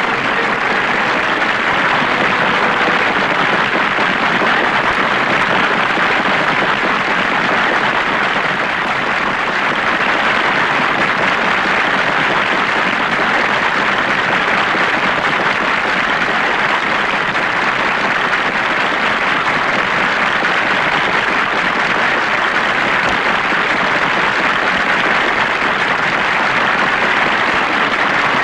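Large crowd applauding steadily, a dense, even clatter of many hands that holds at one level throughout.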